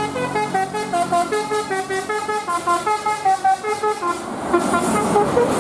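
Bus 'telolet Basuri' musical horn playing a quick tune of short, stepping notes. About four seconds in the tune thins out and a rushing noise rises under the last few notes.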